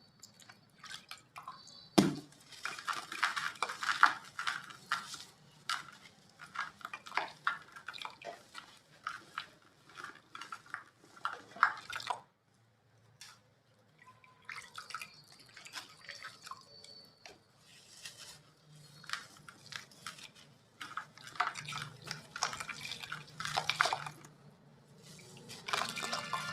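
Gritty chunks of white cement being crumbled, giving quick clusters of crisp crunching and crackling. There is a sharp crack about two seconds in and a short pause near the middle.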